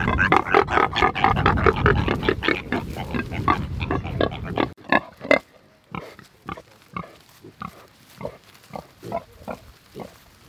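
Mangalitsa pigs grunting: a loud, fast run of grunts for the first half, then, after a sudden drop, softer short grunts about twice a second.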